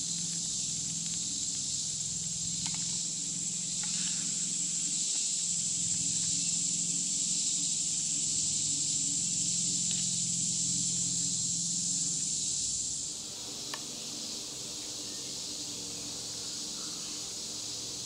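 Woodland insects droning steadily in a high, even hiss, with a few light clicks of knife and fork on a skillet. About thirteen seconds in the drone turns quieter and lower.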